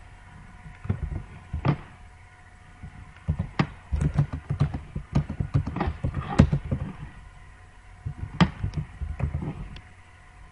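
Computer keyboard being typed on: irregular key clicks in short runs, with brief pauses between.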